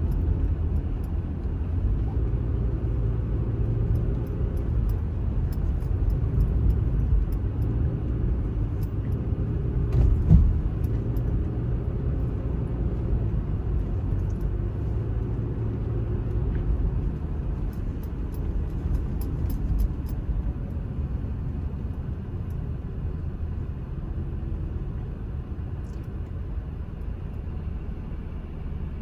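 Car cabin noise while driving: a steady low rumble of tyres and engine, with one brief thump about ten seconds in. The rumble quietens over the last part as the car slows to a stop.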